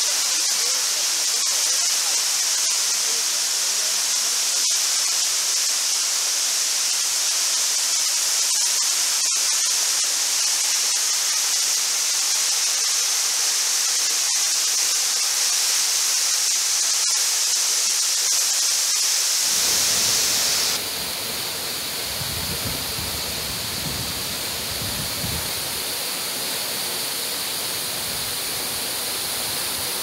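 Steady rushing hiss of a 70-metre waterfall falling into its pool. About twenty seconds in, the sound shifts to a slightly quieter, lower and fuller rush.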